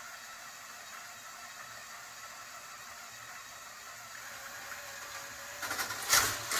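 Lego Loop Coaster's motor-driven lift hauling the car up the tower with a faint steady whine. Near the end the car is released at the top and drops, and a burst of plastic clattering and sharp knocks follows.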